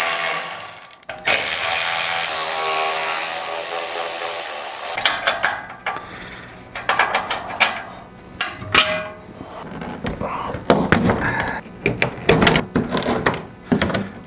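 Cordless electric ratchet running, once briefly and then for about four seconds, backing bolts out of a metal seat rack. Then irregular clicks and knocks of loosened bolts and metal parts being handled.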